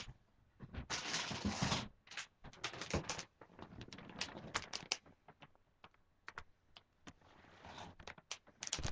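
Plastic bag of pet bedding being handled, crinkling and rustling: a longer rustle about a second in, then scattered sharp crackles and clicks.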